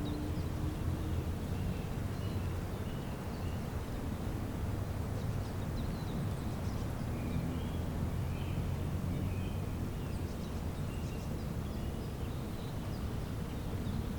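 Small birds chirping faintly and intermittently over a steady low hum.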